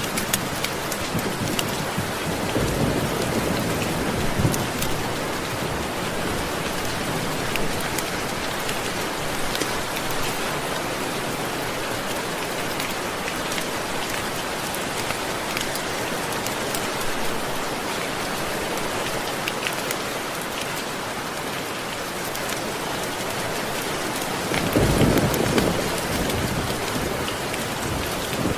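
Steady rain, pattering with fine drop ticks. Low thunder rumbles twice: once a couple of seconds in, and more loudly near the end.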